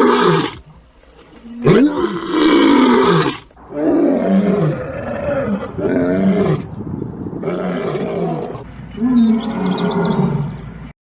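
A big cat roaring: a long roar ending about half a second in, a second long roar from about 2 to 3.5 seconds, then a run of shorter, pulsing roaring calls. The sound cuts off abruptly near the end.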